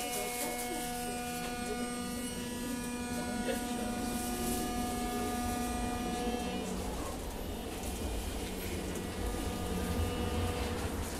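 Hiroshima Electric Railway 800 series tram running, its armature-chopper control giving a steady whine of several fixed tones. The whine fades about seven seconds in, and a low running rumble grows louder.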